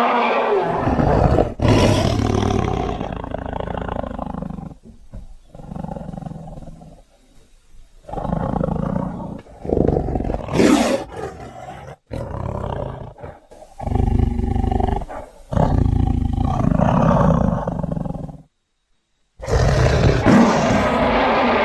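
A series of roars and growls from a big cat, made as sound effects for the extinct Ngandong tiger: several loud, rough calls of a few seconds each, broken by short pauses and by a brief silence near the end.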